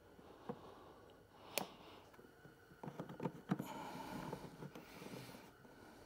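Hand-handling noises while working on wiring and small fittings: a few light clicks and taps, a quick cluster of them about three seconds in, then soft rustling.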